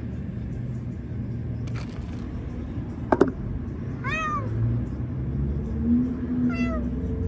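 A feral cat meows twice, once about four seconds in and again about two and a half seconds later, over a steady low rumble; a single sharp knock a little after three seconds is the loudest sound.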